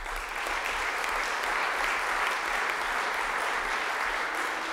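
Audience applauding: dense, even clapping that holds steady and eases slightly near the end.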